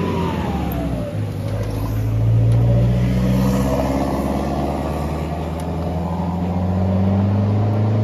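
A motor engine running steadily, louder about two seconds in and again near the end, with a falling whine near the start.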